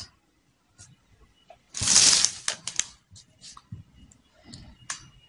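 Brown pattern paper rustling under the hands as a tape measure is positioned on it: one short, loud rustle about two seconds in, then a few faint taps and ticks.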